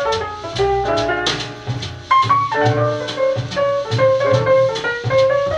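Small-group jazz from a vinyl record playing on a KLH Twenty Plus stereo record player, heard through its speakers: a horn melody over a drum kit and bass.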